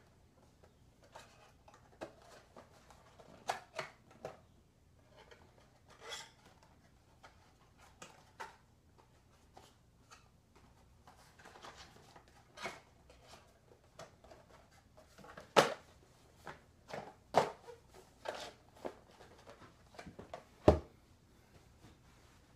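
A small cardboard box being handled and opened by hand: scattered light rustles, scrapes and taps, with a few sharper knocks in the second half.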